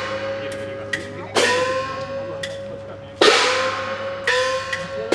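Festival percussion accompanying the Goshuinsen ship float: four heavy strokes, each leaving a ringing tone until the next, with lighter sharp taps between them.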